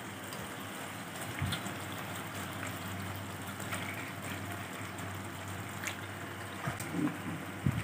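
Curry paste sizzling steadily in a hot wok, fried until its oil has split out, as raw chicken pieces go in, with a couple of light knocks of chicken and spatula against the pan.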